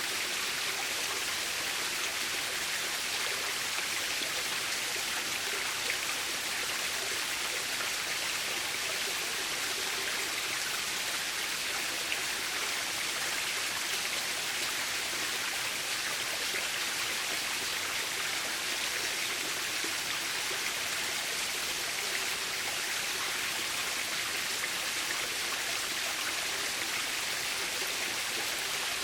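Waterfall: water falling and splashing steadily, with an even, unbroken rush.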